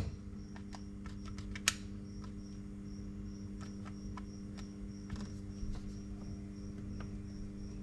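Steady electrical hum with a faint high pulsing tone repeating a few times a second, broken by scattered light clicks and taps, one sharper click about a second and a half in.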